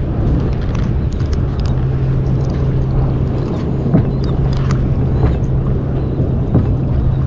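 A boat motor hums steadily and low, under wind and water noise on the microphone. Light, scattered clicks come as the hook and line are handled.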